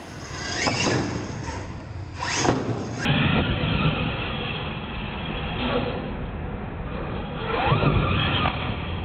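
Radio-controlled monster truck's motors whining, revving up and falling away several times as it accelerates, jumps and drives.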